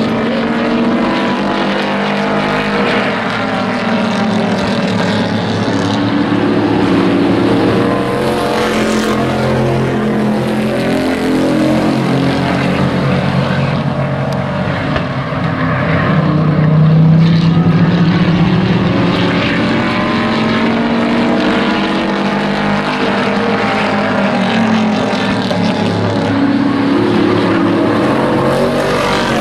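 Engines of several hobby-class stock race trucks running at racing speed in a pack, their pitches rising and falling as they lap the track. The sound is loudest as the pack passes about seventeen seconds in.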